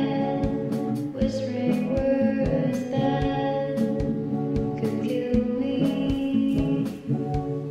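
Background music: a song with guitar and a steady beat, with a female voice singing.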